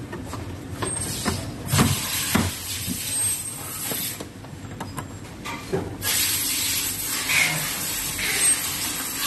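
Scattered clicks and light knocks of small hardware being handled, then a steady hiss from about six seconds in.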